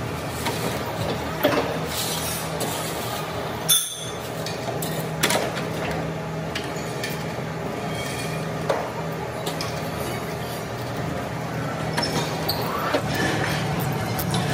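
Factory workshop noise: a steady machine hum with irregular metallic clinks and knocks, one sharper knock about four seconds in.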